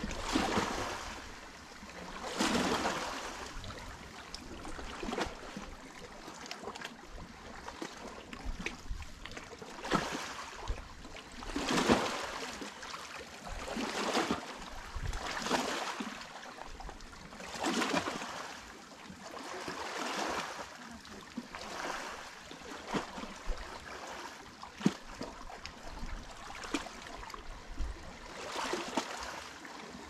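Small sea waves lapping against a rocky shore, a soft wash swelling and fading every two seconds or so, with little splashes and clicks of water among the stones.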